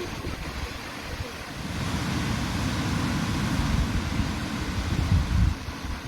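Ocean surf washing onto a beach, swelling about a second and a half in and easing off near the end, with wind buffeting the microphone as a low rumble.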